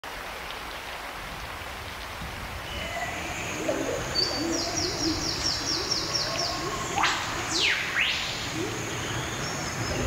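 Forest ambience: a steady hiss of rain under bird calls. Low calls repeat from about three seconds in, a fast high trill follows, and around seven seconds a loud whistle sweeps steeply down and then back up.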